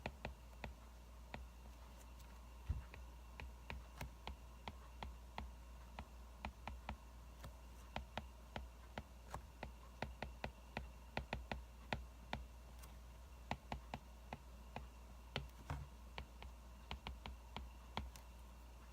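Crackling wood fire: irregular sharp snaps and pops, several a second at times, over a faint low hum.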